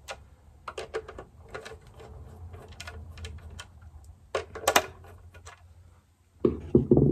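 Small clicks and light plastic knocks as the terminal screws on the top of a Renogy Rover solar charge controller are loosened with a screwdriver and its plastic case is turned over in the hands. There are two sharper knocks about four and a half seconds in.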